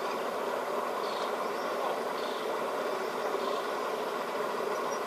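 Speedboat outboard motor idling, a steady even running.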